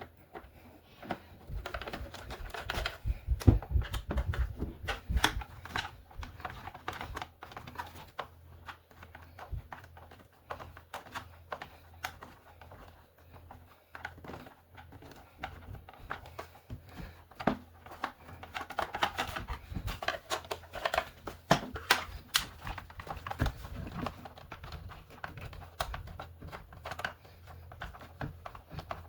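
Hand work on the plastic housing of a Bissell ProHeat 2X Pet Pro carpet cleaner: irregular clicks, taps and rattles as screws are taken out and plastic parts are handled. Heavier knocks come a few seconds in and again about two-thirds of the way through.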